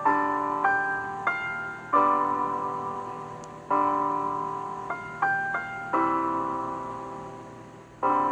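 Slow piano music: chords struck every second or so, with a few quicker notes, each chord ringing and fading away before the next.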